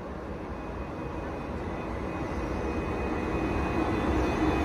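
GB Railfreight Class 92 electric locomotive 92043 running into the platform at the head of a train, its rumble and hum growing steadily louder as it draws closer.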